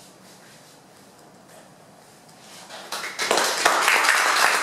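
Quiet room tone, then an audience's applause starting about three seconds in and quickly reaching full strength: many hands clapping at once.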